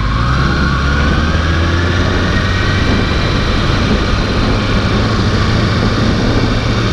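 Motorcycle engine running under way, its pitch rising over the first three seconds as it accelerates, over a steady low drone and rushing noise.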